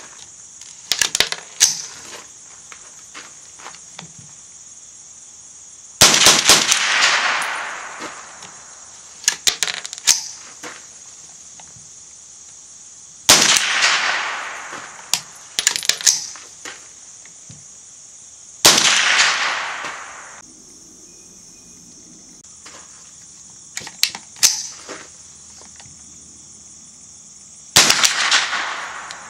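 Smith & Wesson M&P 15-22 .22 LR semi-automatic rifle firing single shots several seconds apart: four loud reports that each ring out and fade, with quieter sharp cracks between them, as the rifle fails to eject spent cases. A steady high insect buzz runs underneath.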